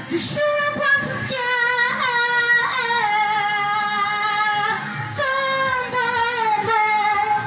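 A woman singing into a handheld microphone, holding long notes.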